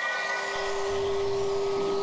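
Electroacoustic music: a steady held mid-pitched tone over a hissing noise bed. Higher tones die away in the first half second, and a low rumble comes in about half a second in.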